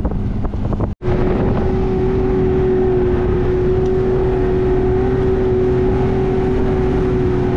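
Boat engine running steadily under way, a low rumble with a steady whining hum over it. The sound cuts out for an instant about a second in, then carries on unchanged.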